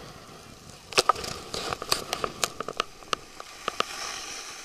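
Handheld camera being jostled and rubbed while moving over snow: a run of irregular sharp clicks and crackles starting about a second in, over a faint hiss.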